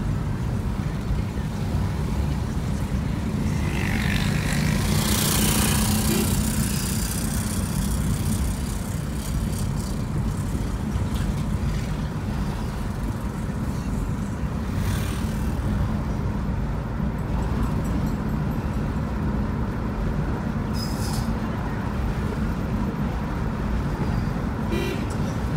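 Steady low rumble of a car's engine and tyres heard from inside the moving car's cabin, with city traffic outside. A louder rushing hiss swells and fades around four to seven seconds in.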